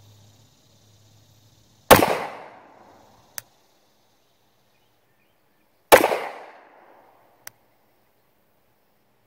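Two shots from a Glock 45 9mm pistol, about four seconds apart, each a sharp crack with an echo trailing off over about a second. A faint click follows each shot about a second and a half later.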